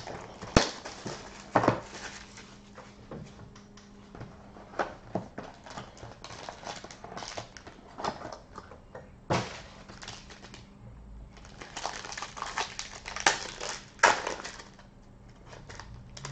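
A sealed trading-card box being unwrapped and opened. Plastic shrink wrap crinkles and tears, and the cardboard box and inner case knock and scrape with sharp clicks. A run of denser crinkling near the end comes as the foil pack is torn open.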